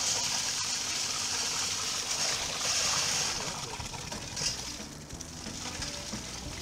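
Steady hiss of water spraying from a hose, loud for the first three seconds and then easing off.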